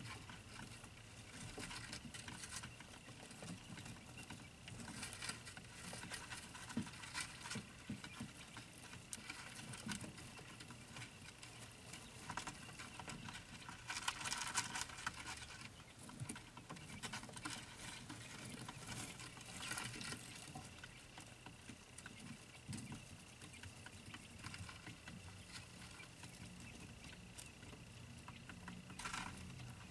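One-day-old quail chicks scurrying about: faint scattered scratching, pecking and rustling of small feet, with a louder flurry about halfway through. A faint steady hum and thin high whine sit underneath.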